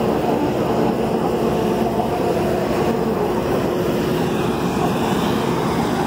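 Astec Prosizer 3600 portable crushing and screening plant running while processing recycled asphalt pavement: the horizontal-shaft impact crusher, vibrating feeder and high-frequency screen at work, a steady mechanical noise with a low hum running through it.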